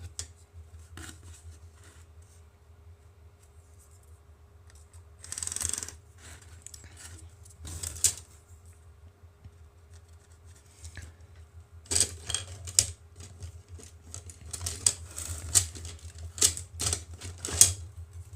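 Light clicks and taps of a ruler-angle tool and pencil being handled against a rocket booster tube while measuring and marking fin positions, with a short rub about five seconds in and a run of quick clicks from about twelve seconds on, over a faint steady hum.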